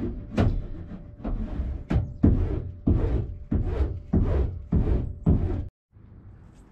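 Rhythmic scrubbing strokes on the bare sheet-metal interior of a Ford Transit van, about one and a half a second, with the hollow panels rumbling under each stroke; they cut off about six seconds in, leaving quiet background noise.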